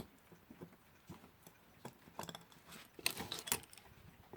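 Light, irregular clicks and taps of small metal clock parts and screws being handled and fitted while an alarm clock is reassembled, with a quick flurry of clicks about three seconds in being the loudest.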